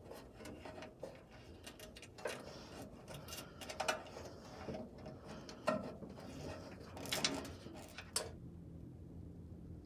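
Insulated wires rustling and scraping as they are pulled through a hole in a steel frame cross member, with irregular light clicks and a few sharper ticks. It stops abruptly near the end, leaving a faint low hum.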